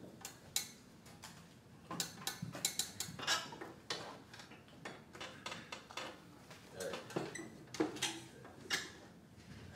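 Irregular clicks and taps of typing on a laptop keyboard, in quick clusters with short pauses between them.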